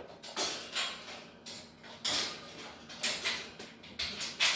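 Metal wire panels of a Pet Planet rat and ferret cage clanking and rattling as they are handled and bolted together, in several separate bursts.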